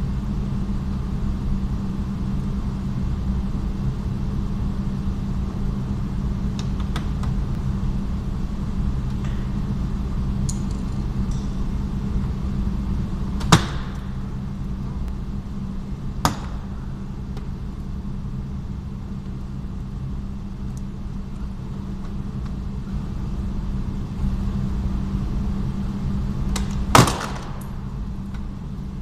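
The plastic retaining clips of a Renault Mégane 3 coupé door trim panel pop loose as the panel is levered and pulled off the door. Three sharp clicks come, about halfway through, a few seconds later, and the loudest near the end, over a steady low hum.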